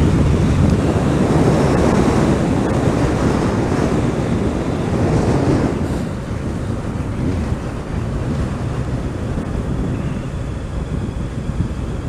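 Wind rushing and buffeting over the microphone of a moving motorcycle, with the bike's engine and road noise underneath. The rush is heaviest at first and eases a little about six seconds in.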